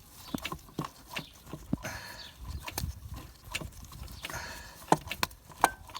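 Irregular sharp metallic clicks and knocks, with a few brief scrapes, as the starter motor's retaining nut is worked off by hand and tools.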